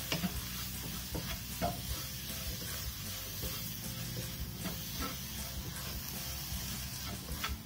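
Wooden spatula stirring and scraping chopped tomatoes through an onion-and-spice masala in a nonstick pan, with occasional knocks against the pan, over a steady sizzle of frying.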